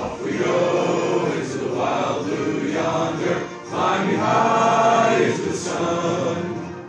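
A chorus of voices singing over instrumental music, in phrases with brief breaks between them.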